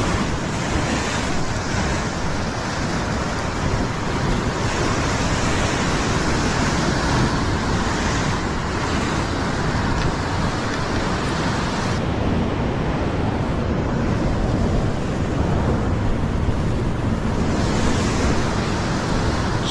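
Ocean surf washing over a rock ledge: a steady rush of white water that swells every few seconds as waves break and drain off the rocks. Wind rumbles on the microphone underneath.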